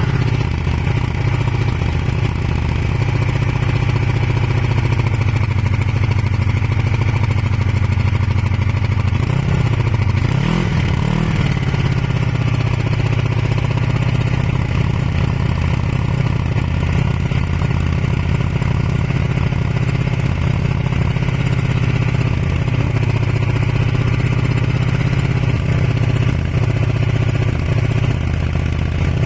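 Kawasaki ER500 (ER-5) parallel-twin motorcycle engine idling, with one brief rev that rises and falls about ten seconds in. The bike is smoking white and misfiring, which the owner suspects is a broken head gasket.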